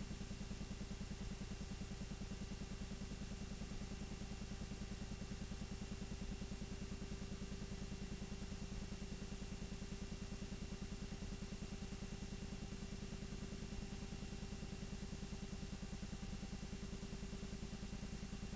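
8mm film projector running: a rapid, even clatter from the film advancing through the gate over a steady motor hum and tape hiss.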